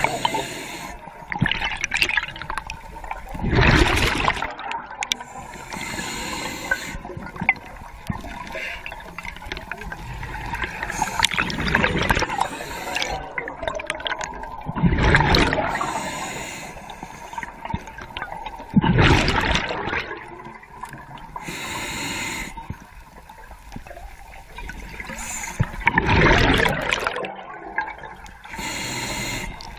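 Underwater diver's breathing: bursts of exhaled bubbles gurgling and rushing past the camera every few seconds, with a steady underwater hiss between them.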